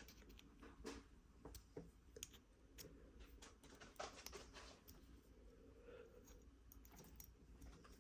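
Faint, irregular small clicks and taps of a metal magnetic fidget slider being handled and worked at while someone tries to take it apart.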